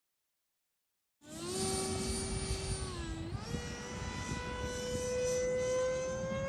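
Silent for about the first second, then the electric ducted fan of an E-flite Viper 90mm RC jet whines in flight over rushing wind noise. Its pitch steps up about two seconds later and keeps climbing slowly as the throttle is raised.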